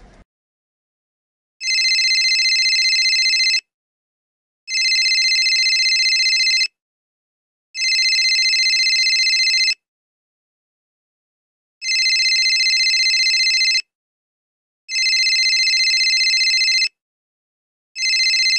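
Phone ringtone: a steady electronic ring lasting about two seconds, repeated in sets of three with short pauses between rings and a longer pause between sets. Five full rings sound, and a sixth starts near the end.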